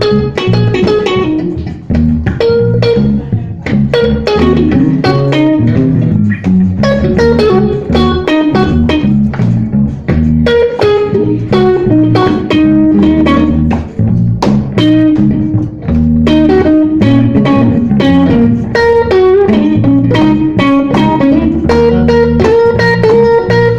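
A blues band playing an instrumental passage: electric guitar picking lead lines over bass guitar.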